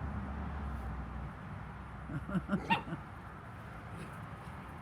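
Seven-week-old puppies play-fighting: a quick run of short growls and yips about two seconds in.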